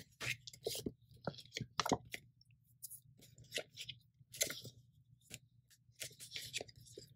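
Clear plastic sticker sleeves and paper sticker sheets crinkling and rustling as they are handled, in short, irregular crackles.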